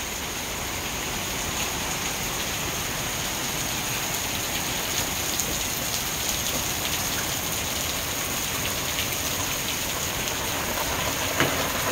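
Hailstorm: hail and rain pelting down in a steady hiss, with scattered small clicks of hailstones striking.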